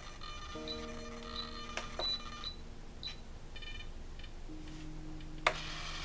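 Flap servos of an FMS A6M5 Zero RC plane buzzing with a steady electric hum that changes pitch in steps as the flap end point is adjusted. The servos are stalled against the flaps' travel limit and straining ("screaming"), which is what the adjustment is meant to stop. A few short high beeps come early on, and a sharp click sounds near the end.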